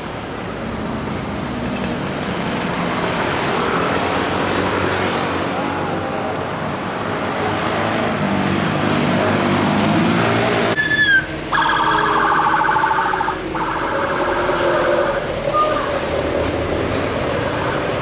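Bus engine and road-traffic noise from buses and motorbikes going by. About eleven seconds in, a telolet (Basuri multi-tone) bus horn sounds: a short falling note, then two pulsing, buzzing blasts of about a second and a half each, and a brief higher note a little later.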